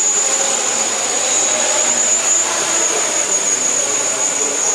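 Flyduspider hexacopter's six electric motors and propellers whirring steadily in flight, with a thin high whine running through it.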